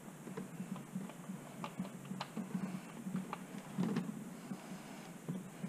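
Light, scattered clicks and taps as a hand handles loose wires under the car, with one louder knock about four seconds in, over a faint steady low hum.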